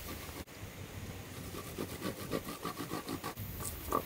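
Paintbrush strokes on a fibreglass surfboard: a quick run of short brushing swishes as paint is laid along the board's rim, over a low steady background hum.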